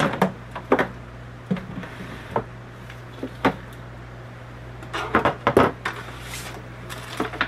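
Metal kitchen tongs clicking and tapping on an aluminium foil pan as chicken wings are set into it, a dozen or so sharp clacks, bunched about five seconds in, followed by a brief crinkle of foil and paper. A steady low hum runs underneath.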